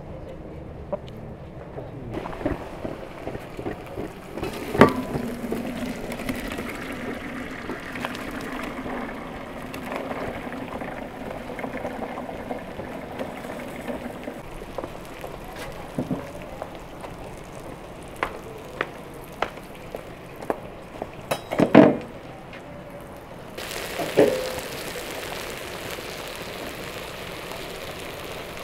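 Cooking clatter of metal pots and utensils with scattered clicks, and a few sharp knocks about three-quarters of the way through, the loudest sound here. Then a steady sizzle takes over: chicken and potato slices frying on a hot stone slab.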